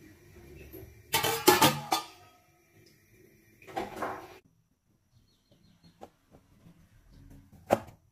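Stainless-steel wok lid clattering against the rim of a wok as it is set on: a loud run of metal knocks about a second in, and a smaller one around four seconds. Near the end, a single sharp tap of a kitchen knife on a wooden cutting board.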